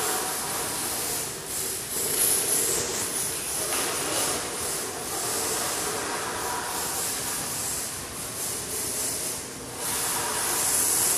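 RC drift car sliding around a polished concrete floor: a steady hiss of tyres with a whirring motor over the hall's background din, louder near the end.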